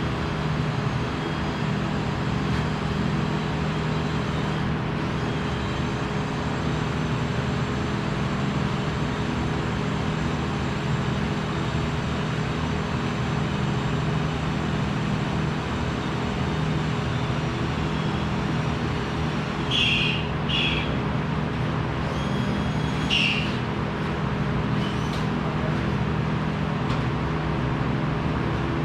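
Steady hum and rushing noise of running workshop machinery, with a few brief high squeaks about twenty seconds in.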